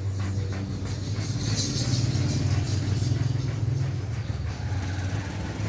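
A motor vehicle's engine running close by with a steady low rumble that swells for a second or two in the middle. Under it, faint regular scratching of a rubber inner tube being scrubbed rough with a hacksaw blade to prepare it for patching glue.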